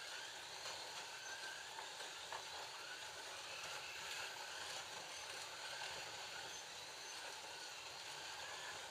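Digital Scalextric slot cars lapping the track: small electric motors whining, rising and falling in pitch as the cars speed up and slow down, over a steady hiss.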